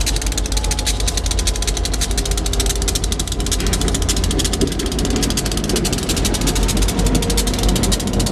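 EMD GP38-2 diesel locomotives running, one creeping slowly past close by. A steady low diesel drone with a fast, even clatter over it, growing slightly louder late on.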